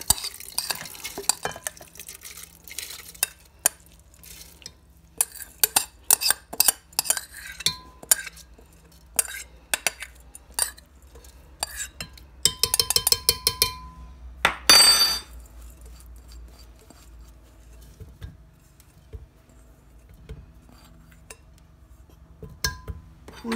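A spoon scraping and knocking cooked rice out of a glass bowl into a glass blender jar, with irregular clinks and taps on the glass. A quick run of taps comes around the middle, followed by one louder, longer scrape.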